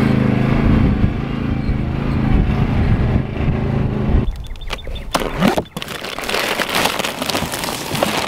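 A zero-turn riding mower's engine runs steadily. About four seconds in it cuts to plastic wrapping crinkling and rustling as a plastic-wrapped roll and a cardboard box are handled.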